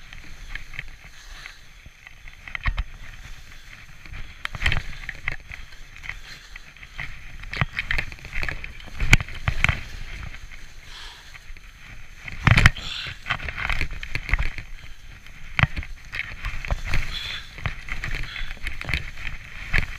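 Skis hissing and swishing through deep, soft powder snow on a fast descent, with wind rumbling on the camera microphone. Irregular thumps run through it, the loudest about nine and twelve and a half seconds in.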